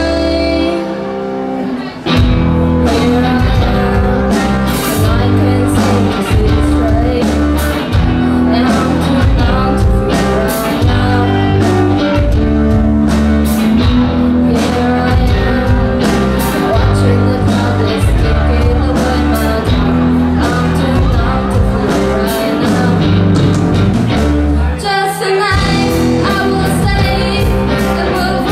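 A live rock band playing: a female singer over electric guitars, bass guitar and drums. The band is thinner for the first two seconds, then comes in full, and the low end drops out for about a second near the end before returning.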